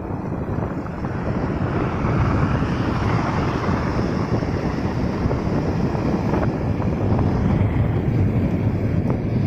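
Bajaj Pulsar 150 motorcycle cruising at a steady 49 km/h: wind rushing over the microphone, mixed with the running single-cylinder engine and road noise.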